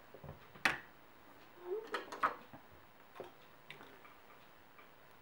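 Scattered light clicks and taps of small plastic and metal parts from a disassembled cordless electric screwdriver being handled, the sharpest about two-thirds of a second in and a small cluster around two seconds.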